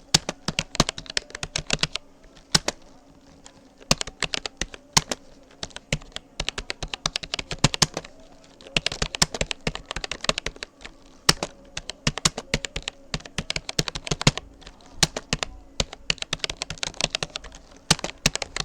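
Fast typing on a Rapoo computer keyboard: rapid runs of key clicks, each lasting a second or two, broken by short pauses.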